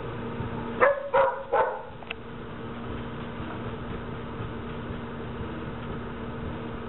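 A microwave oven running with a steady hum. About a second in, three short, loud barks from a dog.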